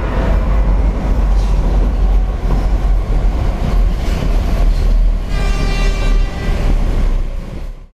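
Subway train moving past the platform with a steady low rumble. A ringing, many-toned squeal or horn-like tone joins for about a second, some five seconds in. The sound fades out just before the end.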